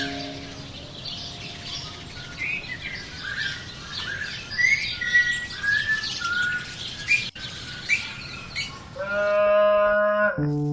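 Wild birds chirping and tweeting, a busy run of short, quick calls. Near the end a steady held musical note comes in.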